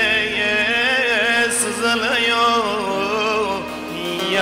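A man singing a Turkish folk song, drawing out a long, wavering melismatic phrase between lyric lines, over instrumental accompaniment.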